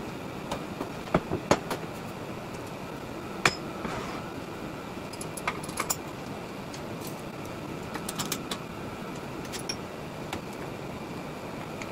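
Scattered sharp clicks and clinks of steel on steel as fixture clamps and a locking clamp are set into the holes of a perforated steel welding table to hold down a steel tube frame, over a steady background hum.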